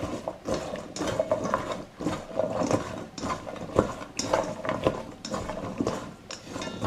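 Raw green beans being mixed with oil and seasoning in a bowl: a quick, irregular clatter and rustle of beans against each other and the bowl.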